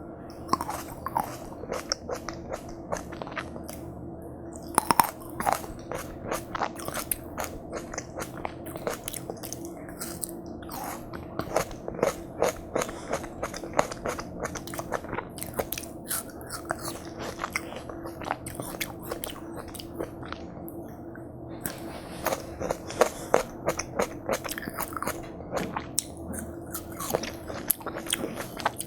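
Close-miked biting and chewing of watermelon, with crisp, wet crunches in quick, irregular runs over a steady low hum.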